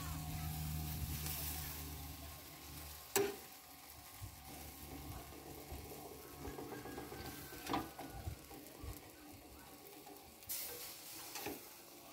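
Fat sizzling on hot charcoal under a whole sheep roasting on a hand-turned metal spit, with three sharp knocks as the spit is turned. A low hum sounds for the first few seconds.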